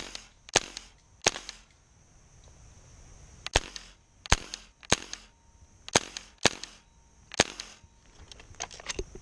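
Tippmann M4 HPA airsoft rifle firing single shots, about ten sharp pops at uneven intervals with pauses of up to two seconds between them.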